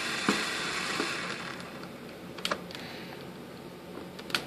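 A few light, separate clicks and taps from a cordless drill-driver's bit being worked on small screws in a plastic tail mount, over a faint hiss that fades away; the drill motor is not running.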